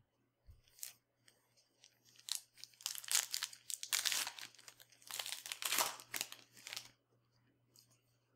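Foil wrapper of a trading-card pack being torn open and crinkled by hand, in loud crackling rustles that build about two seconds in and die away near the end.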